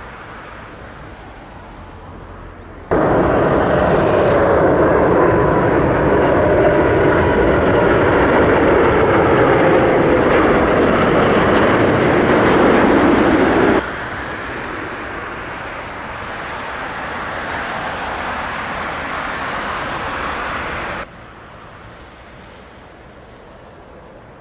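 Jet airliner coming in to land, its engines running with a broad rumble and a whine that slowly falls in pitch as it passes. The noise jumps up suddenly about three seconds in, then drops off in two sharp steps later on.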